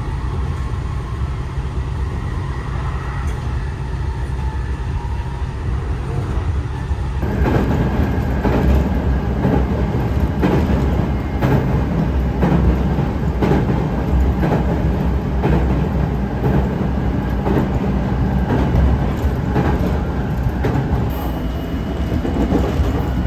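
Running noise of a Japanese local electric train heard from inside the carriage: a steady low rumble, which about seven seconds in turns louder, with frequent sharp clicks from the wheels on the rails.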